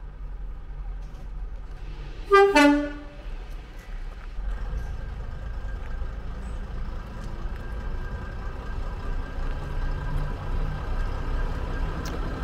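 A railway locomotive's two-tone horn gives one short toot about two seconds in, a higher note dropping straight to a lower one. Under it a steady low engine rumble goes on and grows a little louder after the horn.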